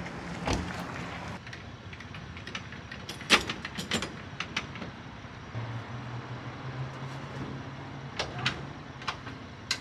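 A scattering of light knocks and clicks, the sharpest about three seconds in, over a faint steady low hum that comes in about halfway through.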